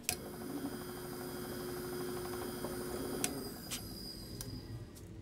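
South Bend 9A lathe running with an end mill in the chuck: a steady machine hum and whine that starts suddenly. A few light clicks come past the middle.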